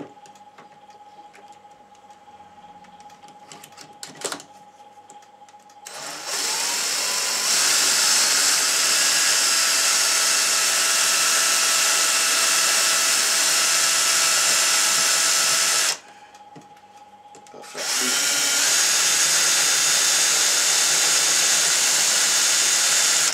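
Cordless drill boring dowel holes into wood through a clamped drilling jig, in two runs: the first starts about six seconds in and lasts about ten seconds, and the second follows after a gap of about two seconds.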